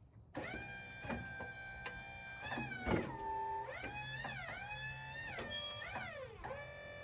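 Portable sawmill machinery running with a whining motor tone that starts abruptly, then repeatedly dips sharply in pitch and climbs back, as if briefly loaded.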